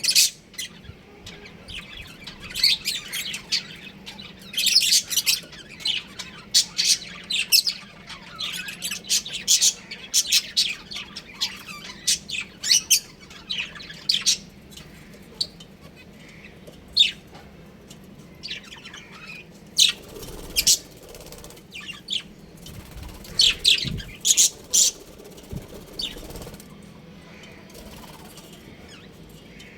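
Budgerigars chirping: many short, sharp calls in quick succession, busy for the first half and sparser in the second half.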